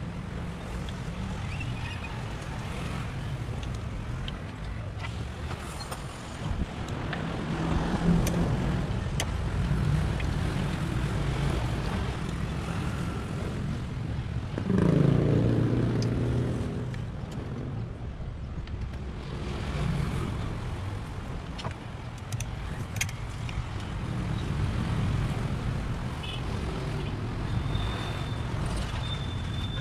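Street traffic rumbling steadily, with a vehicle passing loudly about halfway through, and a few light metallic clicks.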